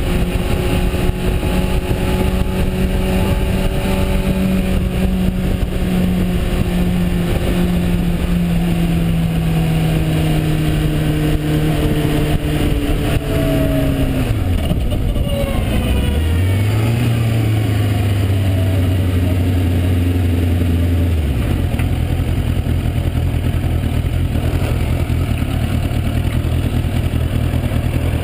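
Suzuki motorcycle engine heard over steady wind rush while riding, its note slowly falling as the bike rolls off and slows. About halfway through the pitch drops sharply, then comes back up and holds steady for a few seconds. It settles into a low idle as the bike comes to a stop.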